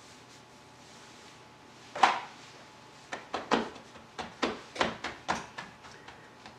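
Hands slapping and pressing pizza dough on a floured granite countertop: a run of short slaps, about two a second, after one louder knock about two seconds in.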